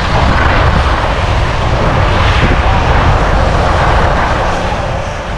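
Loud, steady rushing noise of skiing fast down a groomed run past running snowmaking guns: wind buffeting the action camera's microphone blends with the jet-like hiss of the snow guns. It eases off near the end.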